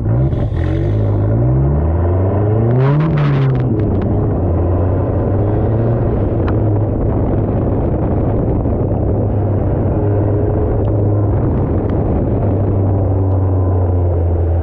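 Nissan D21 pickup's engine and exhaust heard from under the truck during an autocross run. The engine climbs in pitch under acceleration for about three seconds, drops back with a brief clatter, then runs steadily on the throttle.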